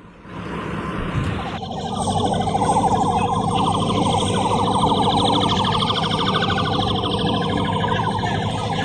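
Emergency vehicle siren sounding with a fast warble, coming in about a second and a half in over a background of noise.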